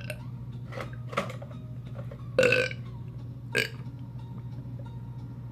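A man burping after drinking carbonated soda. The burp is short and comes about two and a half seconds in. A few brief smaller sounds come around it, over a steady low hum.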